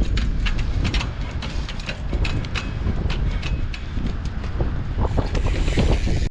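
Strong wind buffeting the microphone in gusts, with a scatter of sharp clicks and knocks from the trials bike over it.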